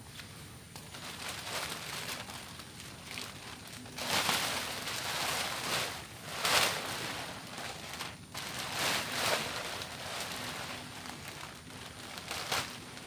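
Plastic tarp crinkling and rustling as it is pulled and shaken over a tent, in irregular bursts that get loud from about four seconds in.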